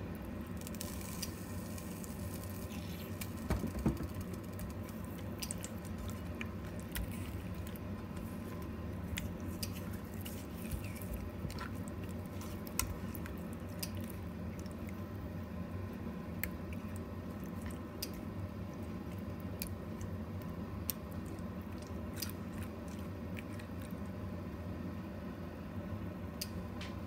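Hand rubbing spice powder and lemon juice into raw fish pieces on a plate: soft wet squishing with scattered small clicks and taps, over a steady low hum.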